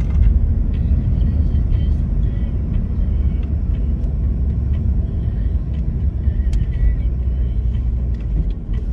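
Car driving at highway speed, heard from inside the cabin: steady low road and engine rumble.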